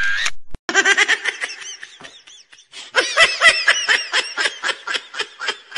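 High-pitched laughter in rapid short pulses, in two runs with a pause about two seconds in.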